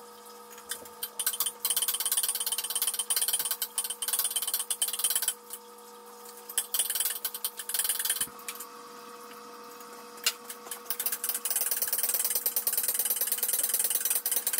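Power wrench rattling in three bursts of a few seconds each while loosening bolts at the front of the engine, over a steady low hum.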